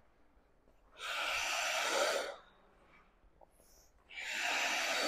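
Ice skate blades scraping across the ice in snowplough stops: two scrapes, each about a second and a half long, about three seconds apart.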